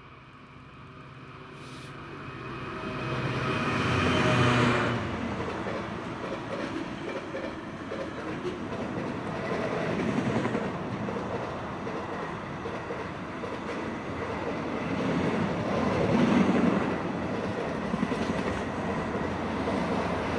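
A DB Cargo Class 66 diesel locomotive, an EMD two-stroke, draws near and passes with a steady engine note that is loudest about four seconds in. Then a long train of container wagons rolls by, its wheels rumbling and clicking on the track.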